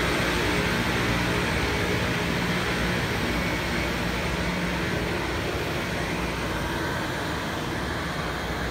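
Rail grinding train passing with its grinding stones working the rails, smoothing out irregularities in the track: a steady, loud grinding rush over a low diesel engine hum. The hum drops away about halfway through, and the whole sound slowly fades as the train moves off.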